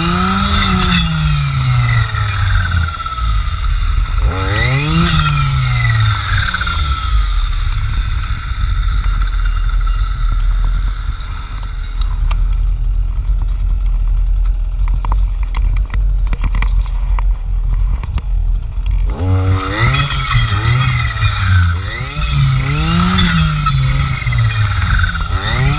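Jonsered FC 2256 W clearing saw's two-stroke engine running with its circular blade, revving up and dropping back in quick surges as it cuts, with a steady high whine. It settles lower for a stretch in the middle before several more rapid revs near the end.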